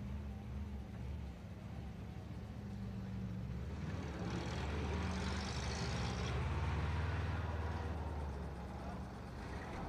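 Motor vehicle engine running with a low rumble. The sound grows louder and broader from about four seconds in, peaking around seven seconds as a vehicle passes close by, then eases.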